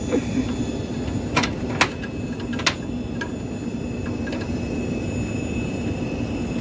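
Steady machine hum, with three sharp metallic clinks in the first three seconds: a box-end wrench worked by hand on the A320 slat brake fittings.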